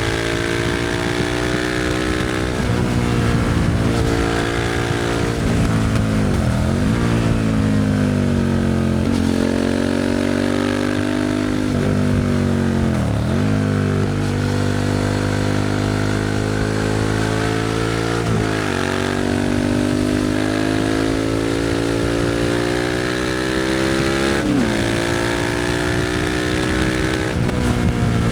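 Suzuki SV650's 645 cc V-twin running through a Leo Vince aftermarket exhaust while being ridden. The engine note repeatedly climbs in pitch under acceleration and then drops sharply at each gear change, about four or five times.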